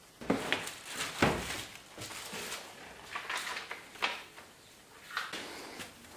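Handling noise of plastic sheeting and a cardboard box: irregular crinkles, rustles and knocks, loudest about a second in, as the instruction booklet is lifted out of the box.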